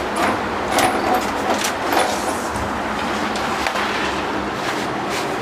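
Steady background motor-vehicle noise, with a few short sharp clicks about one and two seconds in.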